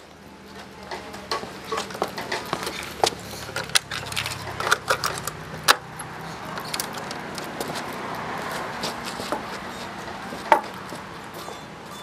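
Portable radio-cassette player giving off hissing, crackling static with scattered clicks as it is tuned, with a low hum underneath that fades about halfway through.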